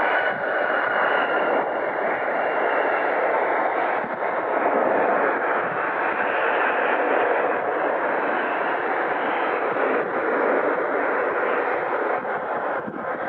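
Jet engine noise from a Boeing 737-800's CFM56 turbofans during the landing rollout just after touchdown: a loud, steady rush, with a high whine that fades about three seconds in.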